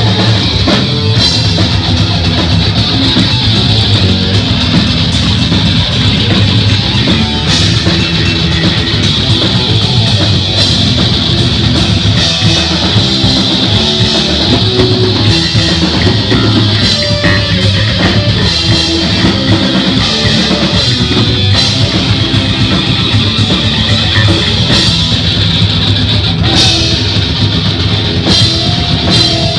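Heavy metal band playing live at full volume: distorted electric guitar over bass guitar and a drum kit.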